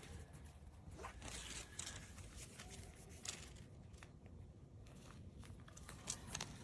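Faint scattered clicks and rustles of handling, as the pump's power cord is plugged in. The pump has not started yet.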